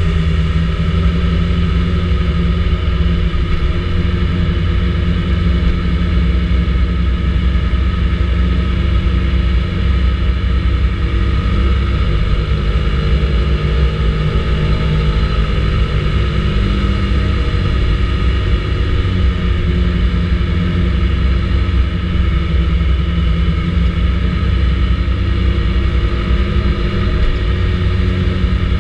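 Vespa GTS 300 ie scooter's single-cylinder engine running under way at a fairly steady speed, its pitch drifting gently up and down with the throttle.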